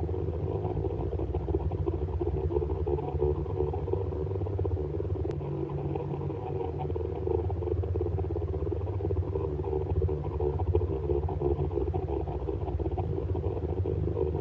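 Synthesized sci-fi warp engine hum: a steady, deep drone with a fluttering mid-range layer, holding constant throughout.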